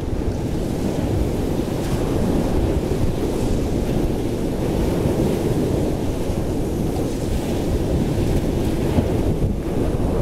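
Wind blowing across the camera's built-in microphone over choppy sea waves: a steady, low rushing noise.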